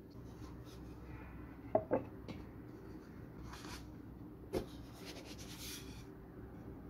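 Handling noise from a clay piece being lifted off a potter's banding wheel and a sheet of cardboard laid on the wheel: two quick light knocks about two seconds in, another about halfway through, and papery scraping and rustling between them.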